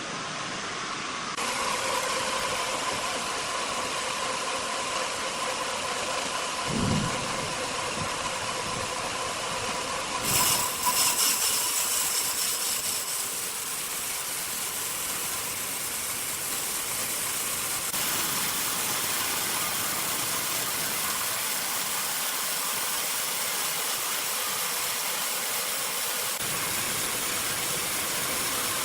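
Sawmill machinery running with a steady engine-like noise, a single thud about seven seconds in and a brief louder clatter around ten seconds in.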